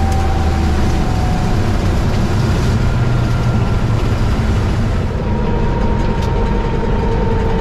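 Race car engine running loud and steady, its pitch sagging slowly.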